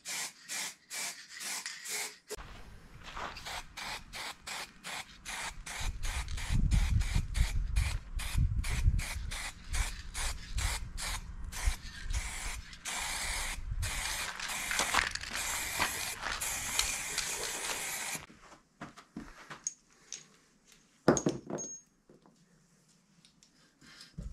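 Rust being hand-sanded off a steel quad part: quick back-and-forth rasping strokes, about three a second, growing denser, then stopping. A sharp knock comes a few seconds after the sanding stops.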